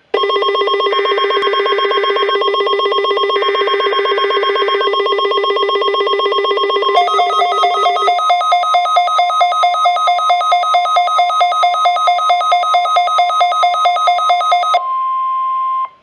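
Weather radios sounding their electronic alert alarms for a NOAA Weather Radio Required Weekly Test. A fast-pulsing beep plays over two short buzzy data bursts. About seven seconds in it changes to a different pulsed alarm at three to four beeps a second, which stops about fifteen seconds in, leaving a steady single tone for a moment.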